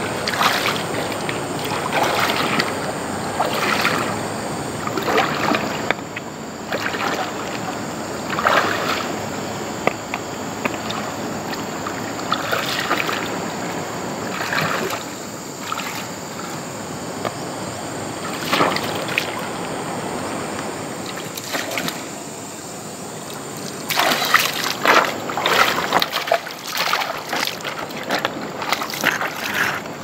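Water splashing and sloshing in irregular bursts every second or two, over a steady rushing wash, with a dense run of splashes near the end.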